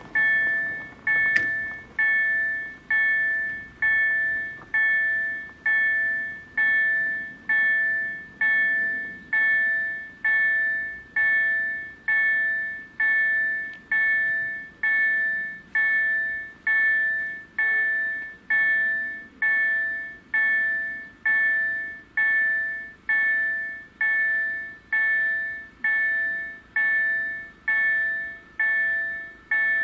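Level-crossing warning bell (two EDE-1 electronic bells) ringing in a steady series of identical chimes, about one a second, each dying away before the next. It warns of an approaching train while the barriers are lowered and then stay down. A single sharp click comes about a second in.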